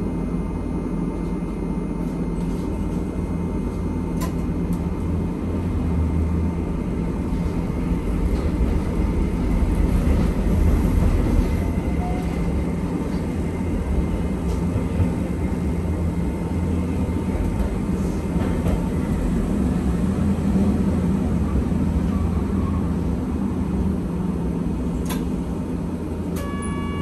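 Hankai Tramway streetcar running between stops, heard from inside the car: a steady low rumble of wheels on rail and motors, with a couple of sharp clicks.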